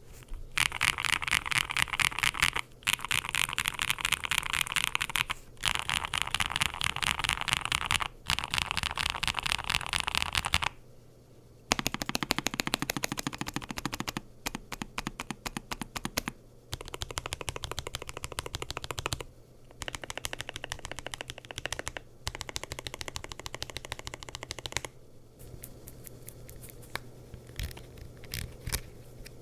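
Fast typing on a NuPhy Air75 v3 low-profile mechanical keyboard with Red Nano linear switches, nSA PBT keycaps, a polycarbonate plate and a gasket-mounted aluminium-top case: rapid keystroke clicks in bursts with short pauses. The first ten seconds or so are louder and brighter; later the strokes are quieter, and near the end sparser.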